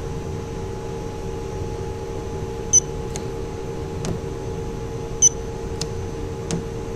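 Electronic paint thickness gauge giving two short high beeps about two and a half seconds apart, each marking a coating reading taken on a freshly painted panel. A few faint clicks fall between the beeps, over a steady background hum.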